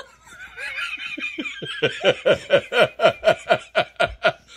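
Laughter: a rapid run of short ha-ha pulses, about five a second, each dropping in pitch, growing louder about two seconds in.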